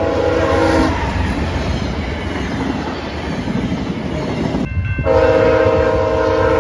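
VIA Rail passenger train's horn chord ending about a second in, followed by the rumble and clatter of the passenger cars rolling past. After an abrupt cut near five seconds, another VIA Rail locomotive's horn starts and holds a chord to the end.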